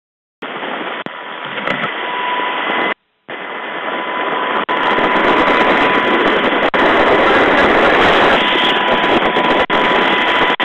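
MH-60 Jayhawk helicopter engine and rotor noise heard over the crew intercom: a loud, steady roar cut off above the intercom's narrow band, with a thin steady whine running through it. It starts abruptly, drops out for a moment about three seconds in, then runs slightly louder.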